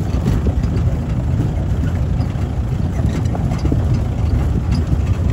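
Safari jeep's engine running with a steady low rumble, heard from inside the open vehicle.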